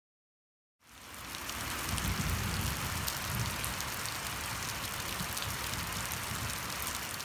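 Rain falling onto waterlogged grass and puddles: a steady hiss that fades in about a second in.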